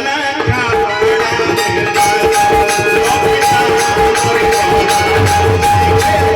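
Instrumental passage of Bhojpuri sohar folk music: long held notes over a steady, fast percussion beat, with no singing.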